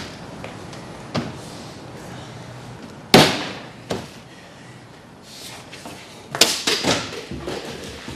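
A door slams shut about three seconds in, followed by a few lighter knocks and clicks near the end.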